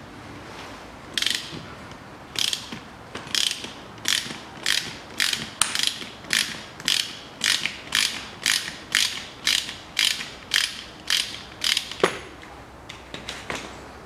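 Ratchet wrench clicking in quick back-and-forth strokes, about two a second, as it winds the screw of a gear puller on a manual gearbox shaft. The clicking stops about twelve seconds in with a single sharp crack.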